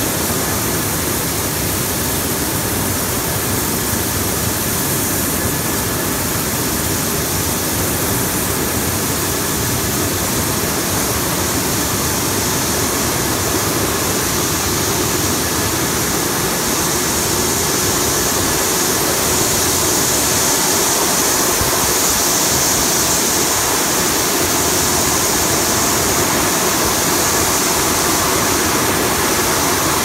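Vegetable washing machine running: a steady rush of churning, splashing water mixed with the hum of the machine, growing slightly louder about halfway through.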